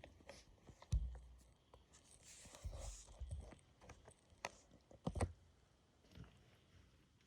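LEGO bricks being handled on a table: a few sharp plastic clicks and knocks, the loudest about a second in and about five seconds in, with a stretch of soft rustling between them.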